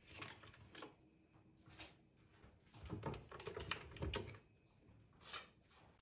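Light knocks and clicks of objects being handled and set down on a kitchen countertop, with a quick run of louder knocks and low thumps about three seconds in.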